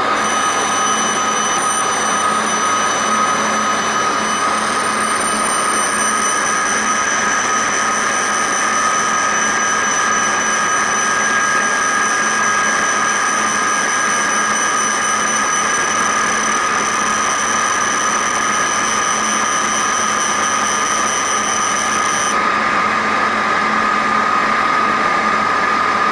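Laser marking machine running while it engraves a logo into a metal grinding wheel: a steady hum with a high-pitched whine layered over it, the whine cutting off suddenly about 22 seconds in while the hum carries on.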